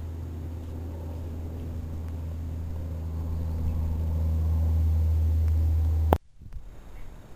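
A steady low mechanical hum that grows gradually louder, then cuts off suddenly with a sharp click about six seconds in, leaving only faint outdoor noise.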